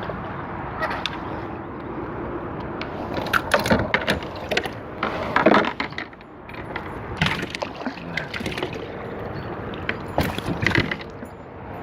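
Irregular knocks, clatters and splashes from a fish being fought and handled in a plastic fishing kayak, over steady wind noise on the microphone.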